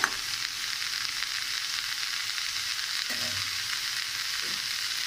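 Cauliflower, potato and green peas frying in spiced oil in a kadai, sizzling with a steady hiss.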